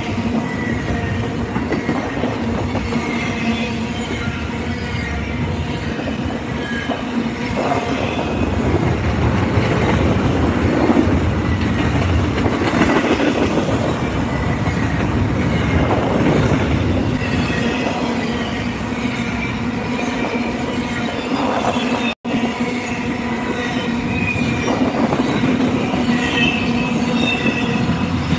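Double-stack container freight train rolling past: a steady rumble of steel wheels on the rails, with thin, wavering squeals from the wheels coming and going.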